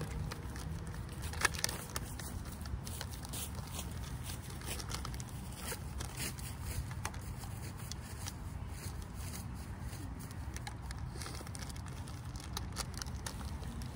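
Plastic bag crinkling and crackling off and on in a hand, over a low steady rumble.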